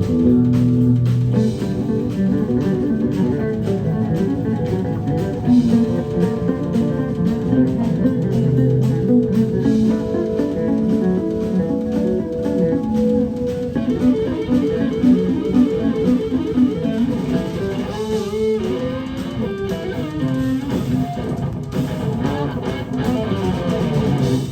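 Live instrumental rock band playing: electric guitar leading over bass guitar and drums, with quick runs of short notes in the second half.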